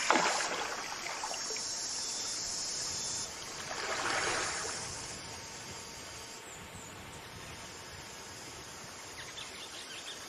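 A person splashing in creek water, with one swell of splashing at the start and another about four seconds in, over a steady high insect chorus.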